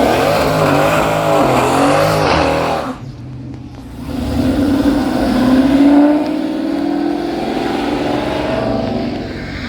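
A car engine revving hard in repeated blips for about three seconds. After a brief drop it accelerates with a rising pitch, then runs on at a steadier pitch.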